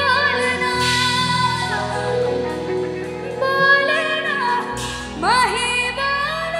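A female singer performing a Hindi film song live into a handheld microphone, with band accompaniment. She holds long, wavering notes and sweeps through a quick ornamented run about five seconds in.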